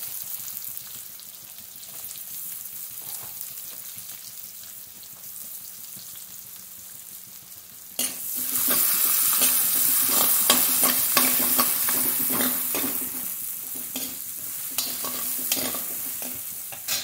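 Chopped onion frying in hot ghee in a steel kadhai, sizzling steadily. About eight seconds in, a steel spoon starts stirring: the sizzle turns suddenly loud, with repeated scrapes and knocks of the spoon against the pan, easing off near the end.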